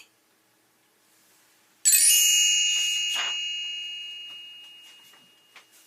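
A bright chime struck once about two seconds in, ringing with several high tones and fading slowly over about three seconds: the page-turn signal of a read-along storybook.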